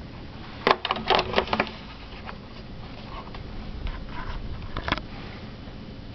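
Plastic handset of a Digitel 2000 telephone set down on its cradle: a sharp knock, then a quick rattle of clicks for about a second as it settles and presses the hook switch. A single click follows about five seconds in.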